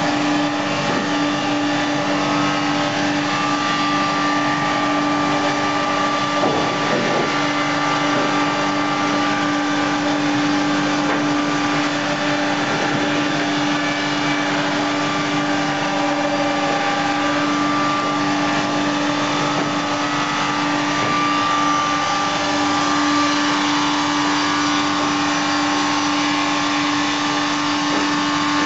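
An FBST-220 milling-sawing line running: its electric-driven cutters and saws and the sawdust extraction fans make a steady hum with a higher whine over it.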